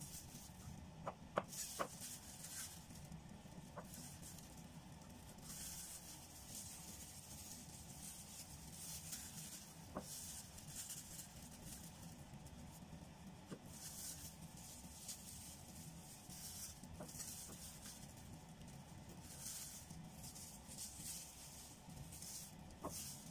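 Faint sounds of a knife slicing okra pods on a wooden chopping board: a few soft taps of the blade on the board, amid light rustling.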